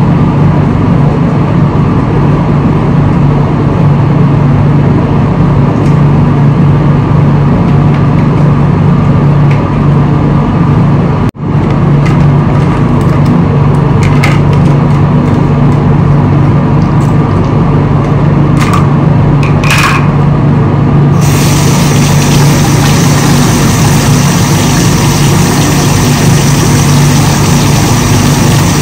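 Steady engine and road noise of a moving vehicle, with a strong low hum. The sound drops out briefly about eleven seconds in, and from about twenty-one seconds it turns brighter with more hiss.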